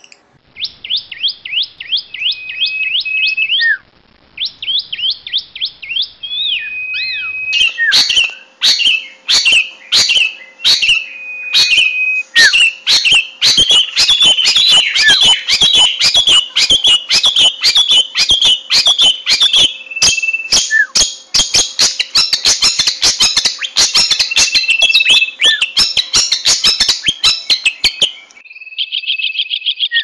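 Long-tailed shrike singing: rapid series of sharp, high chattering notes, with a short break about four seconds in. From about eight seconds in the notes come faster and harsher, and near the end they change to a fast, buzzy trill.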